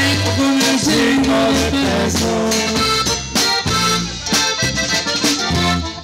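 Live norteño band playing an instrumental passage: a button accordion carries the melody over bajo sexto, electric bass and drum kit.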